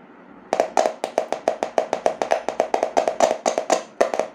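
Rapid clicking, about seven clicks a second, from a horn driver unit's diaphragm as battery current is made and broken through its voice coil; the clicking starts about half a second in.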